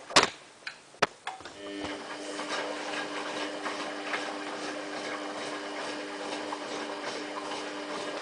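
Samsung WF8804RPA washing machine in service mode: two sharp clicks, then from about a second and a half in a steady electrical hum from the running machine.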